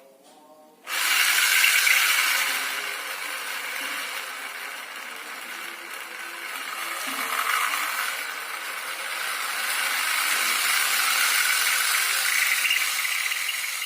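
Small geared motor running with a steady mechanical rattle, starting suddenly about a second in.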